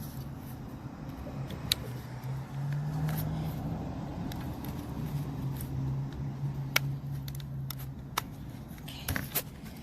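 Scattered sharp clicks and taps of small door-handle parts being handled and fitted together, a few seconds apart with a small cluster near the end, over a steady low hum.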